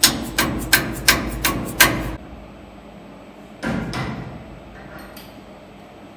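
A dead blow hammer tapping aluminium stock down onto steel parallels in a CNC mill vise: about six sharp knocks, roughly three a second, each with a dull thud. The taps seat the stock and close small gaps so it sits flat. A softer brief noise follows a little later.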